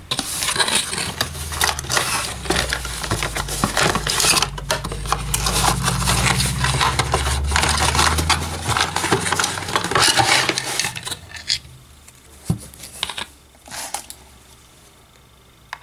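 Handling noise as the hard disk and its accessories are picked up and moved about: dense rustling and small hard clatter for about eleven seconds, then a few light knocks.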